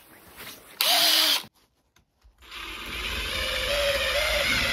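Ryobi cordless drill running while driving a screw into OSB: a short burst about a second in, then after a brief pause a longer steady run with a held motor whine.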